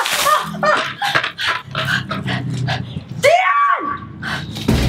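Water splashing down at the start, then a series of short, high yelping cries rising and falling in pitch, the longest about three and a half seconds in.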